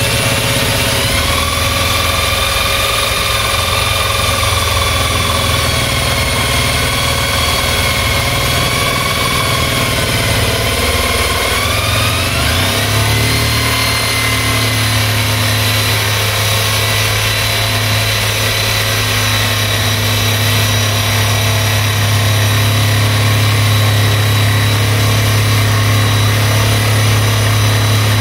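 Jigsaw cutting the hob opening in a wooden countertop with a vacuum running, over the steady low running of a 5000-watt diesel generator. A motor whine steps up in pitch about twelve seconds in.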